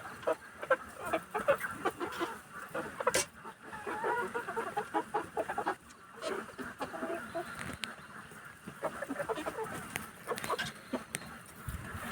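A flock of Kuroiler chickens clucking and calling, with many overlapping short calls and a few sharp clicks or pecks.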